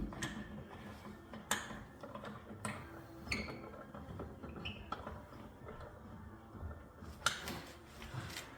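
About half a dozen sharp, separate metallic clicks and clinks spread over several seconds, from wheel bolts being handled and fitted while a wheel is mounted on the hub.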